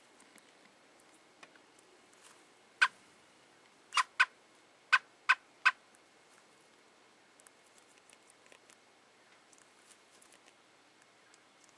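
American robin giving six short, sharp calls, one about a third of the way in and then five more in quick succession over the next two seconds.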